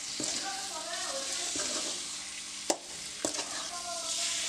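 Raw prawns and onion masala sizzling in a metal wok as a metal spoon stirs them, with a sharp clink of the spoon against the pan a little before three seconds in and a lighter one just after.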